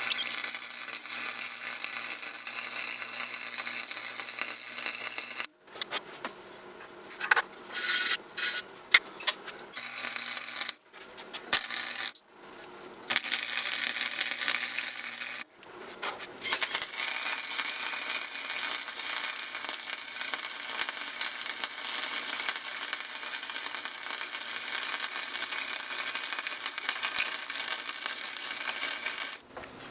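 Harbor Freight flux-core MIG welder's arc crackling and sizzling as beads are laid. It comes in runs: one of about five seconds, several short bursts like tack welds, then a long run of about thirteen seconds that stops just before the end.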